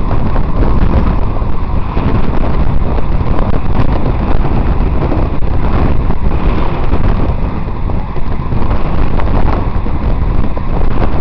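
Wind buffeting the microphone of a camera on a moving bicycle: loud and continuous, without a break.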